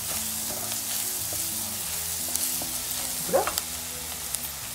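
Chopped onions frying in oil in a pan, sizzling steadily while a spatula stirs them, with a few sharp clicks of the spatula against the pan. A short rising squeak comes about three seconds in.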